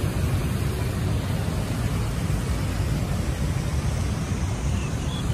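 Steady low outdoor rumble with no distinct events, heaviest in the bass. A few short high chirps come in near the end.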